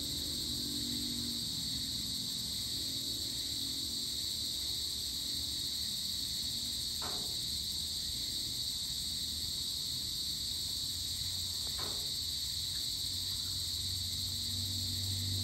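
Steady evening chorus of crickets and other insects, a continuous high-pitched trilling that does not let up. Two faint, brief sounds occur about five seconds apart in the middle.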